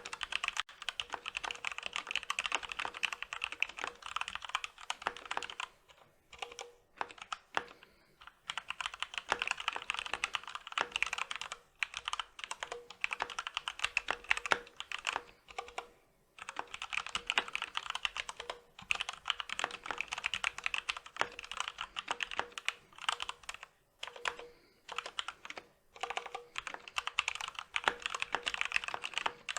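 Fast, continuous typing on a Corsair K65 RGB Rapidfire mechanical keyboard: linear Cherry MX Speed Silver switches clacking under stock ABS keycaps, the stabilizers lubed with grease. The keystrokes come in quick runs broken by a few short pauses.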